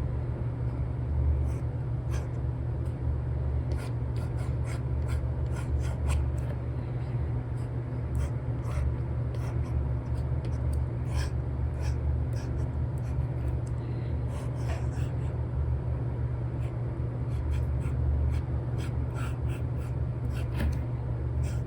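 Apple Pencil 2 with an Elecom nib scratching and tapping across an iPad screen fitted with a paper-like film, in short, irregular strokes. Under it runs a steady low hum.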